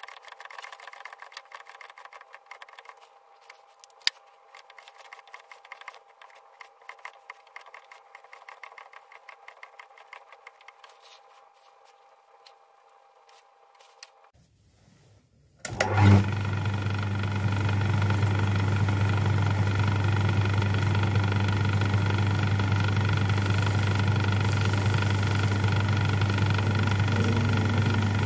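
Faint, irregular scraping and ticking as a homemade shaping cutter planes the teeth of a small gear on a lathe. Past the halfway point a metal lathe starts up with a brief surge and then runs with a steady low hum while a homemade parting tool cuts off a small part.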